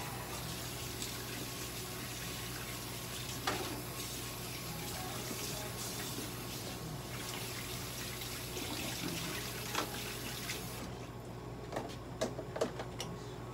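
Water running steadily from a tap, an even hiss that is shut off suddenly about eleven seconds in; a few light knocks and clicks follow.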